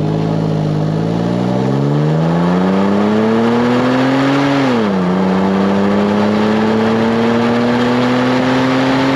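Toyota 1GR-FE 4.0-litre V6 exhaust under hard acceleration, heard at the tailpipe. Revs climb steadily, then drop sharply just before halfway as the automatic transmission upshifts, and start climbing again.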